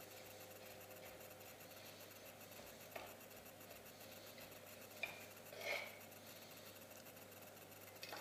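Near silence with a few faint clicks of a kitchen knife against a wooden cutting board as lemon zest is minced.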